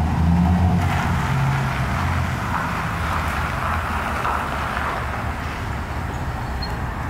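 Vehicles driving at a steady speed: a low engine drone with tyre and wind noise, as heard from a moving pickup pacing another pickup alongside.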